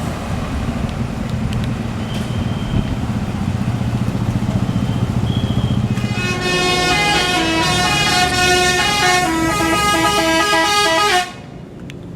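Tour bus's diesel engine running with a low rumble, then about six seconds in its multi-tone telolet horn plays a stepped tune of several notes for about five seconds, cutting off suddenly.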